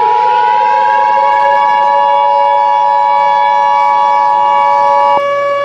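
Emergency Alert System two-tone attention signal, two steady high tones sounding together, layered over a civil defense siren that finishes winding up in pitch in the first second or so and then holds a steady wail. The attention tone cuts off abruptly about five seconds in, leaving the siren.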